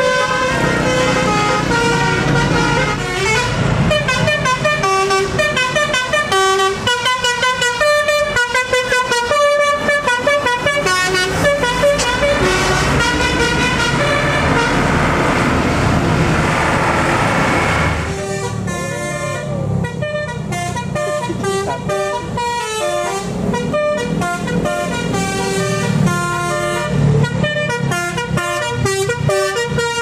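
Telolet Basuri multi-tone bus horns playing fast melodies note after note, over the engine noise of passing vehicles. The tune and sound change abruptly about eighteen seconds in.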